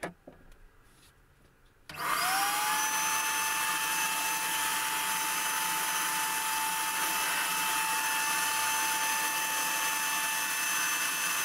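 Electric HVLP paint sprayer's turbine switching on about two seconds in, its whine rising quickly and then running steady with a rushing air hiss while paint is sprayed onto a tabletop.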